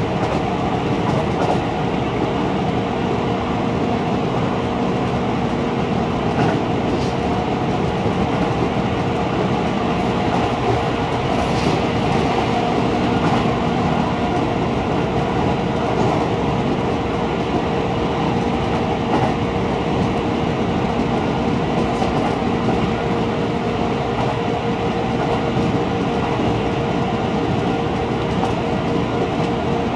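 Keihan electric train running along the track, heard from inside the front cab: a steady rumble of wheels on rail with a steady hum and occasional faint clicks.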